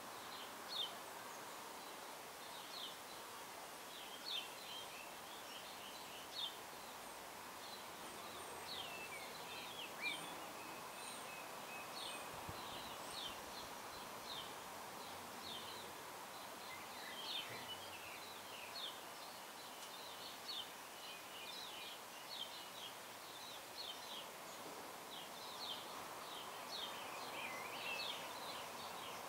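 Small birds chirping, many short high calls scattered irregularly over a steady background hum.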